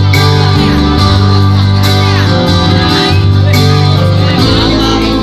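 Loud live music from an electronic keyboard played through a PA loudspeaker, with a heavy, steady bass and a gliding melody line over it.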